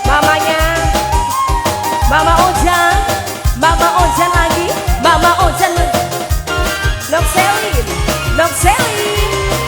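Tarling dangdut music played loud: a wavering, ornamented melody line over a steady beat of drums and bass.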